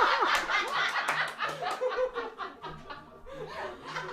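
People laughing in quick choppy bursts, loudest at first and fading about two seconds in.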